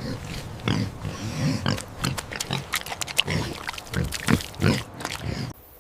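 A domestic pig grunting and oinking in a rapid, irregular series of short grunts, about two a second, which cut off suddenly near the end.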